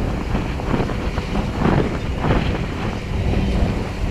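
Wind buffeting the microphone over a boat engine running steadily.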